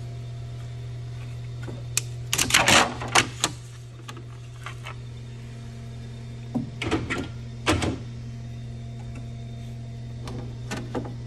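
Printed plastic parts being pried and lifted off a 3D printer's bed: two clusters of clacks and scrapes, about two seconds in and around seven seconds in, with a few light ticks near the end, over a steady low hum.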